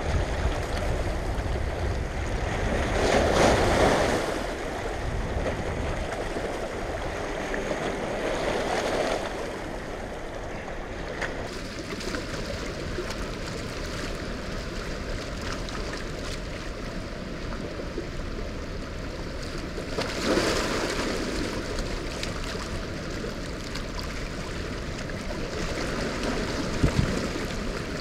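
Heavy rushing water of a dam tailrace, churning current from the spillway release, as a steady wash of noise with a few louder swells. Wind buffets the microphone at times.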